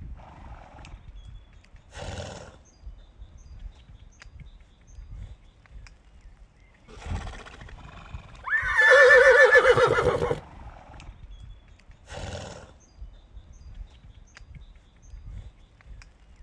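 A horse whinnies once, loudly, about halfway through: a wavering neigh lasting nearly two seconds. Shorter breathy sounds come a few seconds before and after it.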